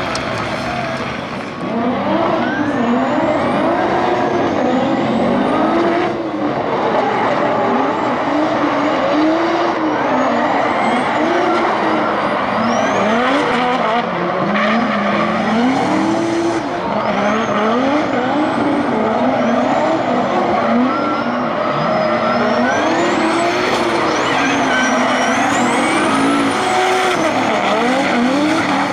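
Two drift cars in a tandem run: high-revving engines rising and falling in pitch again and again as the drivers work the throttle, over the steady hiss and squeal of tyres sliding sideways.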